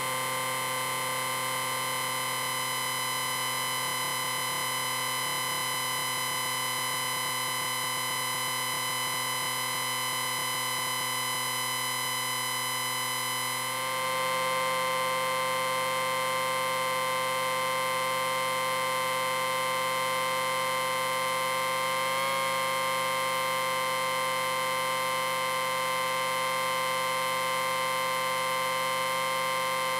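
Amplifier whine: a steady electronic beep made of several tones sounding at once. About halfway through it shifts to a slightly louder, different blend of tones, with a brief waver a little later.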